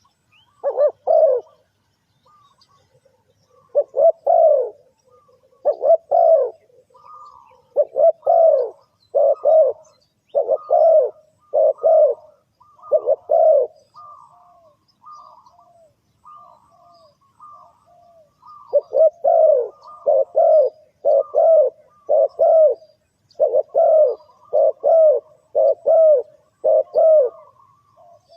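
Spotted dove cooing: phrases of short coos repeated over and over. About halfway through there is a few seconds of only softer, higher notes before the loud cooing resumes.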